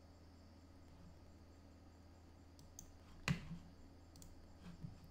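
A single sharp desk click about three seconds in, with a few faint clicks around it, over a low steady hum: a computer user working the mouse and keyboard.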